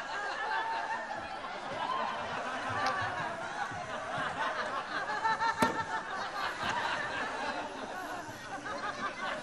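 Audience laughing, many people chuckling and snickering at once, with a single sharp click a little over halfway through.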